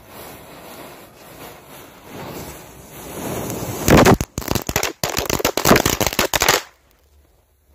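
Matchsticks burning with a low hissing rumble, then about four seconds in a Diwali firecracker catches and sprays sparks with loud fizzing and crackling for about two and a half seconds before cutting off suddenly.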